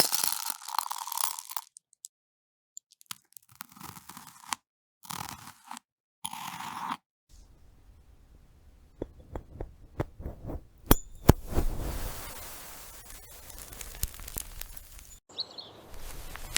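A string of short AI-generated video soundtracks played back to back, each cut off abruptly with a moment of silence between them. A longer stretch about halfway through holds a run of sharp clicks and knocks.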